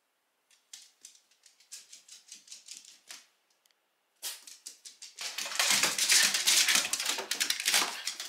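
A small Shiba Inu's claws clicking on a wooden floor in scattered taps. From about four seconds in they become a fast, louder clatter as the dog runs.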